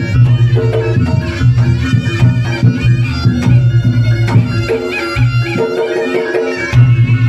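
Reog Ponorogo music: a slompret (double-reed shawm) playing a sustained melody over drum strokes and a deep steady low tone. The low tone drops out for about a second and a half past the middle, then returns.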